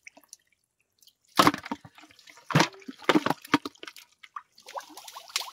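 Shallow water splashing: a near-silent first second, then a string of sharp, irregular splashes, with a denser patch of smaller splashes and drips near the end.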